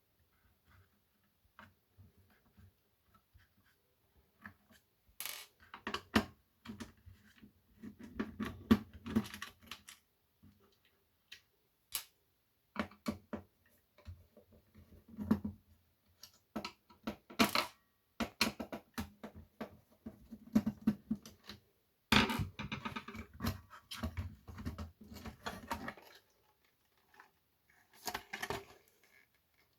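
Irregular clicks, taps and scraping from the plastic casings and circuit boards of taken-apart dictation machines being handled. Sparse at first, busier after about five seconds, with a dense run of rattling past the middle.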